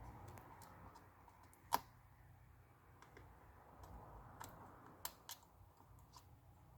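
Faint, scattered small clicks and taps from hands handling tools and small parts while the touch-bar connector is being fitted inside an opened iPad. One sharper click comes about 1.7 s in, and a few more come near the end.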